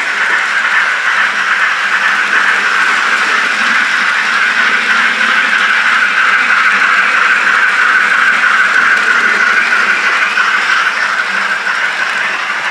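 Steam-locomotive sound played through the tiny speaker of a DCC sound-fitted N gauge GWR Castle model as the train runs: a steady hiss of working steam with no low end.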